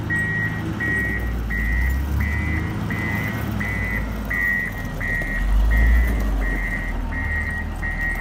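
Komatsu motor grader's reversing alarm beeping steadily, about one and a half beeps a second, over its diesel engine running; the engine swells briefly a little past halfway.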